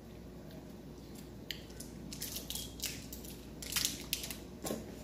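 Wrapper of a small chocolate crinkling in irregular crackles as it is unwrapped by hand, loudest near the end.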